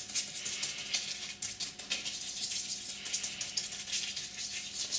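Pastry brush painting melted butter over thin filo pastry sheets: a rapid rustling scratch of bristles across the papery pastry.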